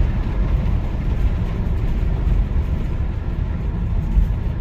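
Steady cabin noise of a vehicle driving along a country road: engine and tyre noise, strongest in the low range, with no change in pace.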